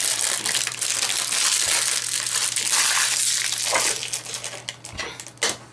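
Thin clear plastic bag crinkling and crackling as hands work it open to free a small vinyl figure. The crackle is dense and continuous at first, then thins into a few separate crackles near the end.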